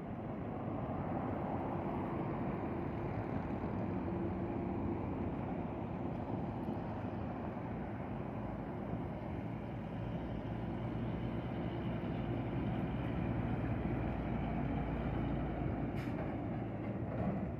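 Heavy highway traffic passing close by: a fully loaded semi-trailer truck, cars and a minibus, then a water tanker and a container truck, with engines and tyres running steadily. A deeper low rumble builds near the end as the tanker and container truck go past.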